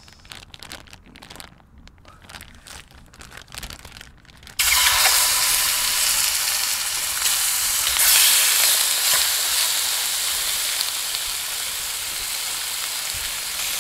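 Marinated meat sizzling loudly in a hot aluminium pan. The sizzle starts suddenly about four and a half seconds in, as the meat is dropped from a plastic bag into the pan, and keeps going steadily. Before that, the plastic bag crinkles softly.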